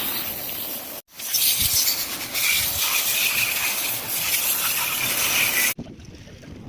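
A steady, loud hiss of a water jet spraying, cut off suddenly about a second in, starting again at once, and stopping abruptly near the end.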